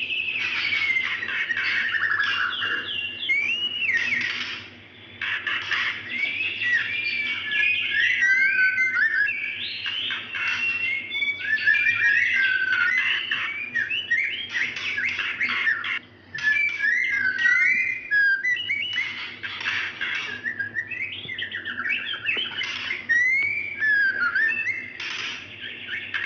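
Female white-rumped shama (murai batu) calling for a male: a continuous run of clear whistles that glide up and down, mixed with rapid chattering rattles. The song breaks off briefly about 5 seconds and again about 16 seconds in.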